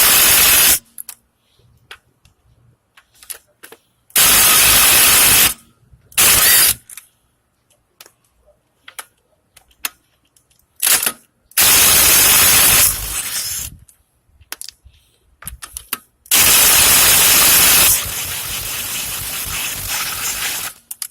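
Impact wrench with a 17 mm socket hammering on a wheel's lug bolt in five rattling bursts of one to two seconds. The last two bursts run on at a lower level before they stop. The bolt is stuck and does not break loose.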